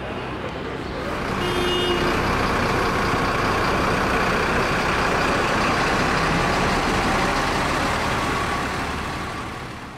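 A large vehicle's engine running close by in street traffic, swelling about a second in, holding steady, then fading near the end. A short pitched beep sounds about one and a half seconds in.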